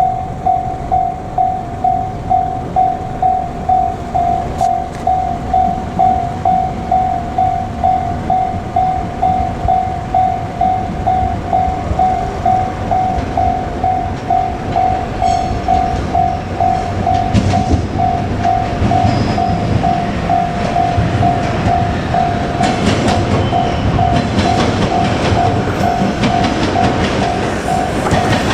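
Japanese level-crossing alarm ringing in a steady pulse about twice a second. From about 17 s a JR Kyushu 817 series electric train comes through the crossing, its wheels clattering over the rail joints under the ringing bell.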